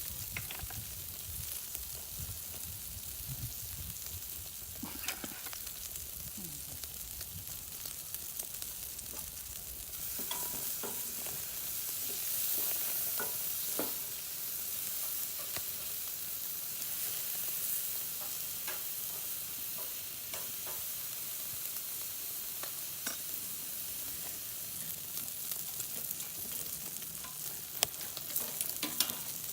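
Meat sizzling as it grills over the fire, a steady crackling hiss with scattered small pops, louder from about ten seconds in.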